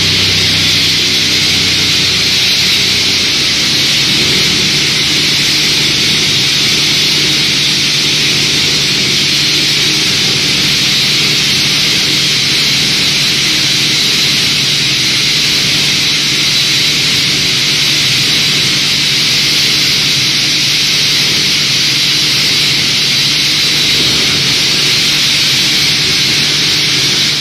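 Evashred Optima OGB80120 plastic granulator running steadily under load as it grinds plastic offcuts, with the loud hiss of regrind being blown through the conveying pipe and pouring into a bulk bag over a low machine hum. The sound cuts off suddenly at the very end.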